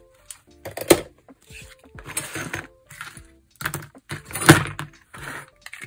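Craft materials being handled close to the microphone: a series of short rustling, crinkling noises, the loudest about four and a half seconds in.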